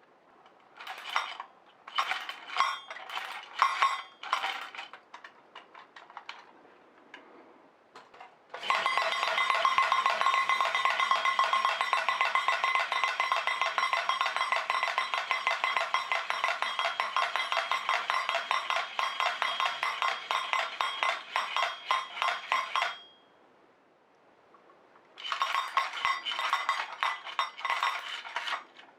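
Wind-up toy drumming robot beating its drum: a fast, even metallic clatter of strikes with a ringing tone, which runs for about fourteen seconds and stops suddenly. Scattered metallic clicks and clinks come before and after it.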